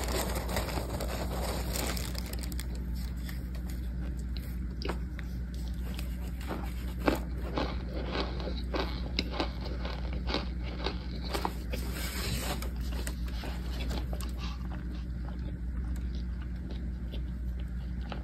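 Cornstarch chunks crunching in irregular, sharp, crisp crunches over a steady low hum.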